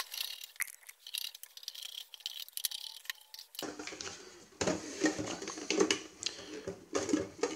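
Metal case of a Brüel & Kjær Type 2706 power amplifier being handled on a bench: light clicks and scrapes at first, then from about halfway louder clatter and knocks as the unit is turned around and its top cover is worked loose.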